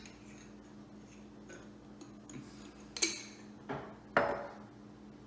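A few separate clinks and knocks of kitchen utensils against a dish or jar, over a faint steady hum.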